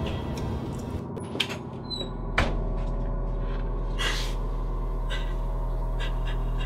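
Background party music fades, then a door shuts with one sharp click about two and a half seconds in. A steady low hum follows, with a brief hiss about four seconds in.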